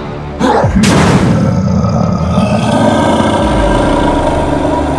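Two booming hits about half a second apart near the start, each with a falling low sweep, then a steady droning sound: edited cartoon sound effects over background music.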